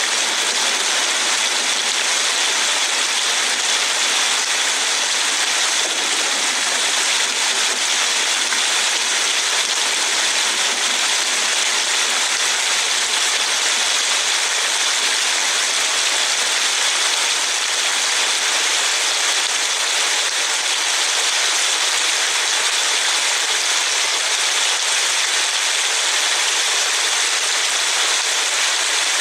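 Steady hiss of heavy rain and wet-road spray, heard from inside a slowly moving car, with no change in level.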